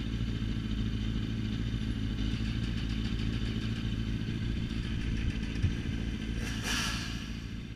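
Sport motorcycles idling at a standstill, a steady low engine note that does not change. A single short click comes past the middle, and a brief whoosh of noise near the end.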